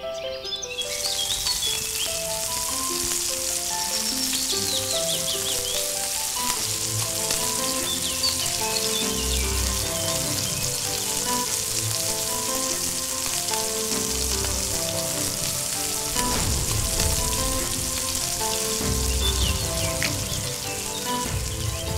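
Crab pieces frying in a miniature pot, a steady sizzle that starts about a second in, under background music.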